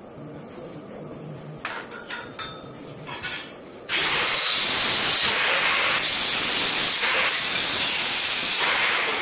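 A power tool starts about four seconds in and runs with a loud, steady hiss, then begins to fade near the end; before it, a few faint clicks.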